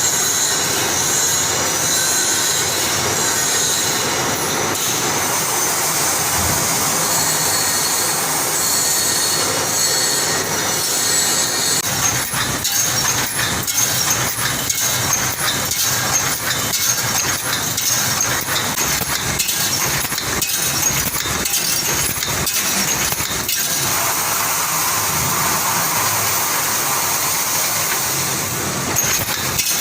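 An automatic wire mesh welding machine running with a steady mechanical noise and hiss. About twelve seconds in, repeated sharp clattering knocks join it and carry on.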